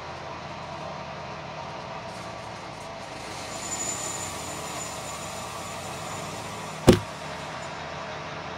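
Homemade bandsaw mill running steadily as it saws through a long spruce log. There is one sharp knock about seven seconds in as the phone that is filming topples over.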